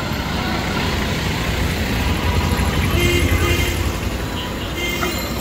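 Street traffic: a steady low rumble of vehicle engines, with a few faint short tones about halfway through and near the end.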